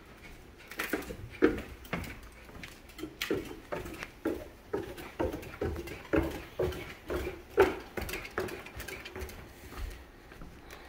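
Footsteps on a wooden plank floor, about two steps a second in an even walking rhythm, fading out near the end.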